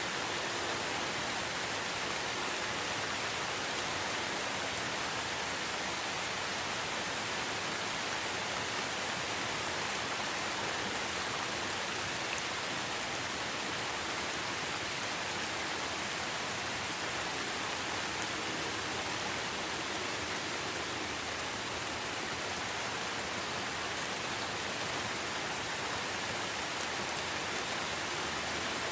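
Steady rainfall: an even hiss with no breaks or single drops standing out.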